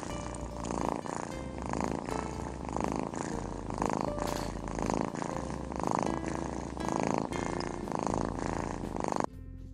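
Domestic cat purring close up, the buzz swelling and easing about once a second with its breathing, as it kneads a fleece blanket. The purring drops away abruptly just before the end.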